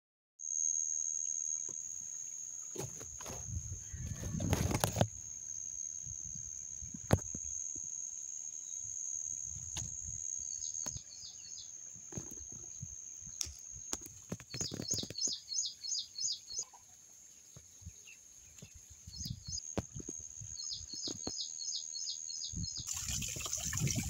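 Outdoor rural ambience: a steady high-pitched insect drone throughout, with a bird calling in short rapid series of chirps now and then. Low bumps, rustles and a few sharp clicks come from the camera being moved and leaves being handled.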